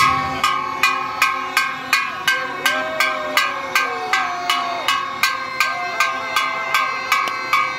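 An empty red gas cylinder beaten with a stick as a drum: a steady beat of nearly three ringing metal clangs a second.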